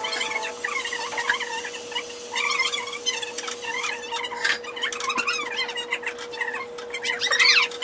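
Room voices sped up by fast playback into high-pitched, squeaky chatter, over a steady hum. A few clicks and rustles come about halfway through, and there is a louder squeaky outburst near the end.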